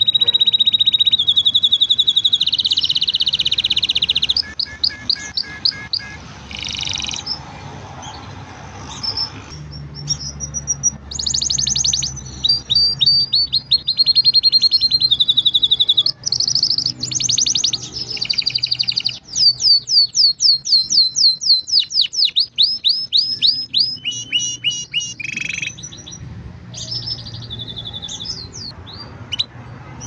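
Green domestic canary singing a long, varied song of rapid trills and rolls, phrase after phrase with short pauses between. The song grows quieter near the end.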